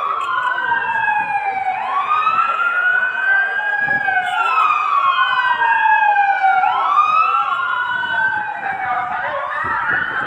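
Several emergency-vehicle sirens wailing at once, each rising and falling over about two seconds and out of step with the others.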